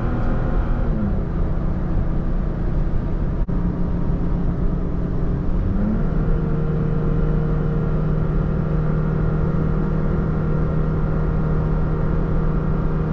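Toyota Tacoma's engine heard from inside the cab as a steady drone over road noise, pulling hard in third gear up a long grade while towing a travel trailer. There is a brief dropout about three and a half seconds in, and the drone's tone changes a little about six seconds in.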